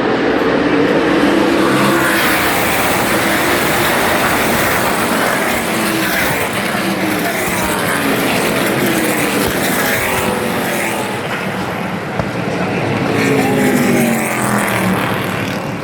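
Several NASCAR Truck Series race trucks' V8 engines at full throttle racing past, the engine notes of different trucks sliding up and down in pitch as they accelerate and pass, with a louder pass near the end.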